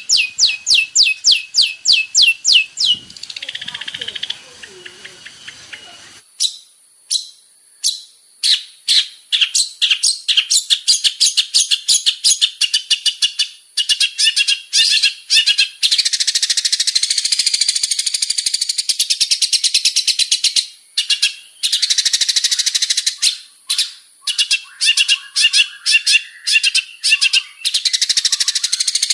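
Long-tailed shrike (cendet) singing: first a fast run of repeated high, down-sliding notes, about five a second, then a quieter, muffled passage. From about six seconds in comes a fast, dense and varied chattering song.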